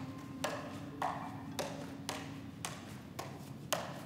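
Juggling clubs smacking into the hands as they are caught, a sharp tap about twice a second.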